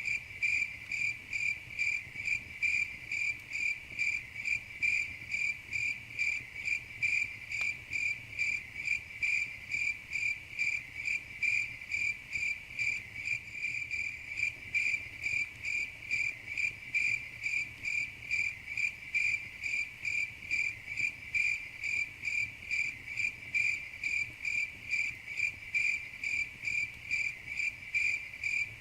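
Crickets chirping in a steady, even rhythm, about two to three high chirps a second without pause.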